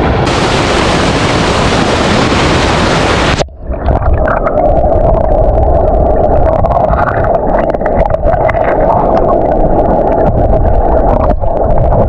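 Rushing shallow stream over rocks, heard as loud full hiss; about three seconds in it cuts to an underwater recording: muffled, dull water churn with a steady hum and many small clicks and bubble pops.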